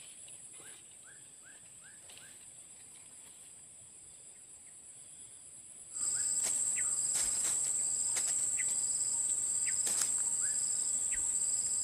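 Steady high-pitched insect drone with a softer pulsing call beneath it about once a second; it turns much louder about six seconds in. Faint short rising chirps repeat through the quieter first part.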